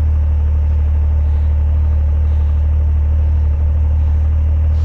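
Snowmobile engine idling steadily: a constant low hum.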